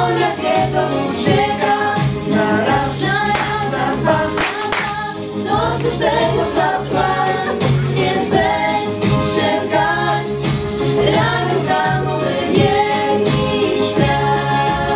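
A small group of mixed voices, mostly female with one male, singing a song together in harmony.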